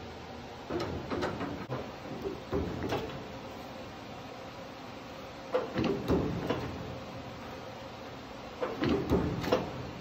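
Manual sheet-metal brake clanking as its handle and linkage are worked, in four bursts of metal knocks and rattles about every two to three seconds. Each stroke puts a small bend in the sheet metal, forming a square-to-round duct transition.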